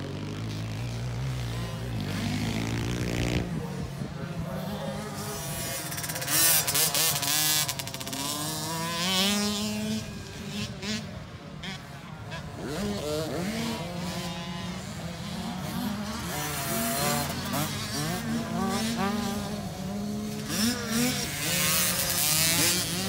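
Small youth dirt bike engines revving around a motocross track, several at once, their pitch rising and falling as the riders accelerate and back off, with louder stretches about six seconds in and near the end.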